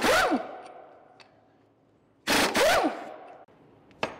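Impact wrench hammering in two short bursts about two seconds apart, its motor whine bending in pitch as the trigger is pulled and let go, then a brief snap near the end. It is running the bolts out of a Toyota Tacoma front differential housing.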